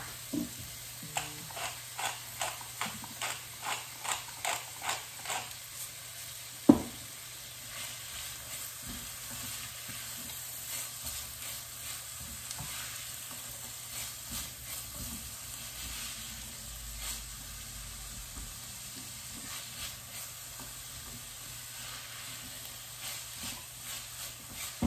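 Diced onion and carrots sizzling gently in fat in a stainless steel saucepan while a spoon stirs them. For the first several seconds the spoon ticks and scrapes against the pan about twice a second. One louder knock comes about seven seconds in, then a quiet, steady sizzle with occasional light clicks.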